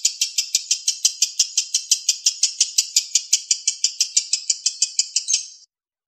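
A lovebird's long, unbroken 'ngekek' chatter of the kind called konslet: rapid, sharp, high 'kek' notes at about seven a second, which stops abruptly near the end.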